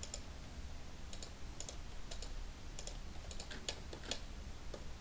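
Computer keyboard keys and mouse buttons clicking irregularly, about a dozen short clicks, many in quick pairs, over a faint steady low hum.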